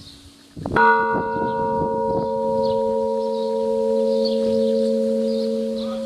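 Monastery belfry bell struck once by its clapper about a second in, then ringing on with a long, slowly fading ring.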